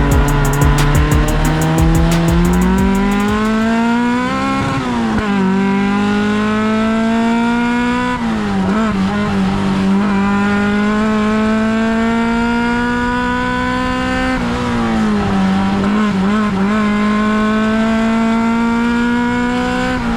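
Off-road race car engine running hard at high revs. Its pitch climbs steadily, drops sharply several times and picks up again, like revs held and shifted.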